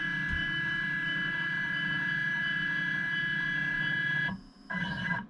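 CNC machine's axis drive motors whining steadily as the machine homes itself to find its axis positions. The whine stops briefly about four seconds in, starts again, then cuts off.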